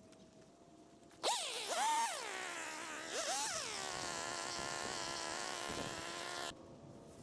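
Small gas engine of a handheld cutting tool revving in quick throttle blips, the pitch jumping up and sliding back down, starting about a second in. It then runs steadily at high speed and cuts off abruptly near the end.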